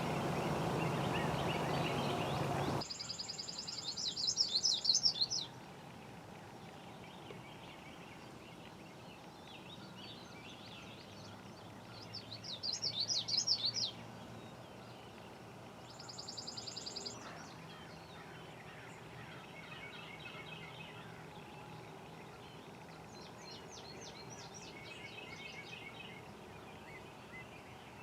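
Songbirds singing in short, high, trilling phrases every few seconds over faint outdoor quiet. For the first three seconds a steady rushing noise sits under everything, then cuts off suddenly.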